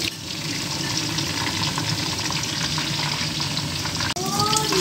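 Chicken pieces and eggplant wedges deep-frying in hot oil in a stainless steel wok: a steady sizzle that cuts out for an instant near the end.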